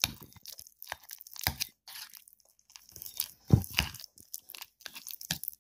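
A toddler chewing a mouthful of chicken curry close to the microphone: irregular wet mouth clicks and smacks, with a short pause partway through and one louder click about three and a half seconds in.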